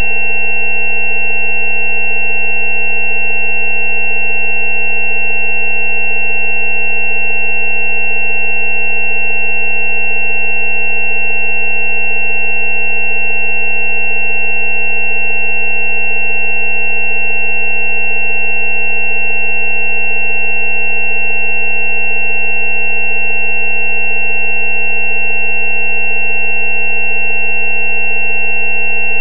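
Steady synthesized tones: a low 190 Hz tone, billed as a healing frequency for dental abscesses, layered with several higher tones, the loudest a high whine. They hold unchanged, with no pulsing.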